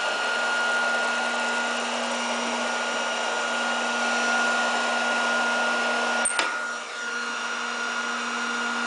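Hot-air blower of a BAK Planon Tape overlap welding machine running steadily, a rushing air sound with a constant whine. About six seconds in there is a sharp click as the blower is swung out of the seam, and the air sound dips briefly before settling again.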